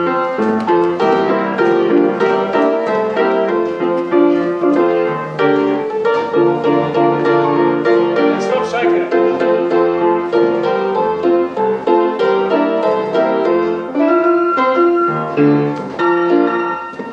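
A pianola (pneumatic player piano) playing a roll without a break, many notes together and in quick succession. It is running for the first time after repair of its bellows and a couple of sticky valves.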